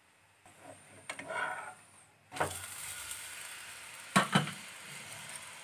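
Bathua paratha sizzling on a hot nonstick pan, starting suddenly a little over two seconds in as it is turned over, with two sharp knocks against the pan about four seconds in.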